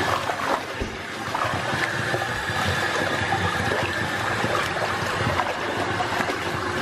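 Bathtub faucet running steadily, its stream pouring and splashing over a wet puppy as hands scrub its coat in the tub water.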